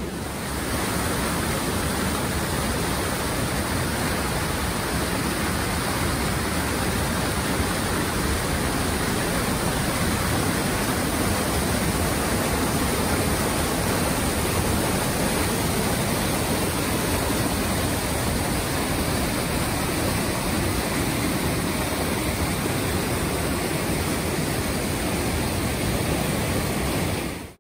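Whitewater of a mountain river cascading between granite boulders: a steady, unbroken rush of water that cuts off suddenly near the end.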